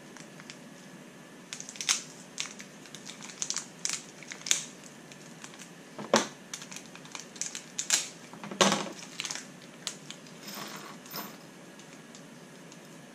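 Small plastic parts bags crinkling and tiny shock-kit parts clicking as they are handled, in irregular bursts, with two louder knocks about six and nine seconds in.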